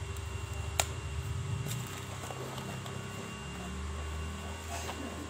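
A few light clicks and taps from a Hot Wheels gift pack's cardboard box with its plastic window being handled, over a low steady rumble.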